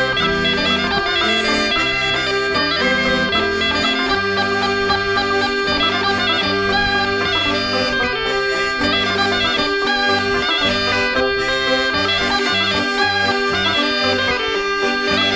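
Traditional French folk dance tune played on bagpipes, whose steady drone runs under the melody, with a diatonic button accordion and a banjo in the ensemble.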